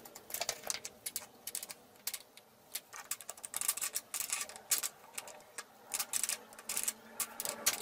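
A small metal spanner clicking and scraping against a bolt and the metal base plate of an electric jigsaw as the bolt is turned. It makes an uneven run of small, sharp metallic ticks.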